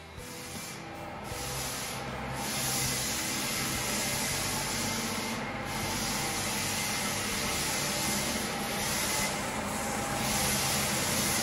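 Floor sanding machine running steadily as it sands a wooden Versailles parquet floor: a continuous rushing abrasive noise over a low motor hum, growing louder over the first couple of seconds.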